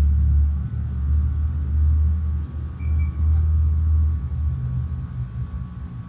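American Standard Silver Series heat pump outdoor unit running, a deep low rumble that rises and falls unevenly and eases off after about four seconds.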